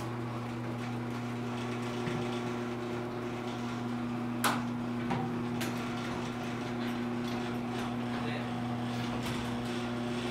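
Garage door opener motor running steadily as the sectional door lowers, with a single click about four and a half seconds in. The motor stops near the end. The door is weighted with hung table saw sleds, which is enough to set off the opener's safety trigger on the way down.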